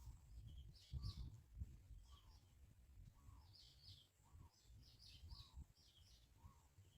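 Faint bird calls: short high chirps in quick clusters, with a lower call repeating at a steady pace, over a low rumble.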